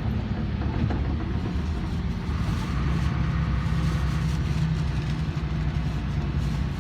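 LiAZ 5292.21 city bus under way, heard from inside the passenger cabin: a steady engine hum with road and body noise.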